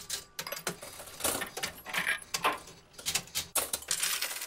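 Intro sound effect of rapid, irregular metallic clinks and jingling, several sharp hits a second with a bright ringing edge.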